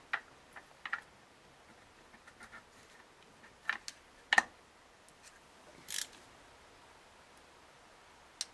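Scattered light clicks and knocks of small engine parts being handled and seated, with a short hiss about six seconds in: LS7 lifters and lifter trays going back into an LS engine.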